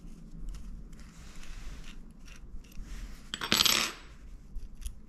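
Small metal clicks and clinks from a Campagnolo rear derailleur being handled and taken apart by hand to remove its jockey pulleys, with a louder half-second metallic rattle about three and a half seconds in.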